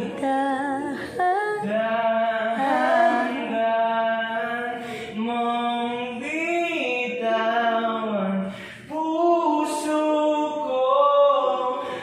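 A voice singing a slow melody, holding long notes with short breaks between the phrases.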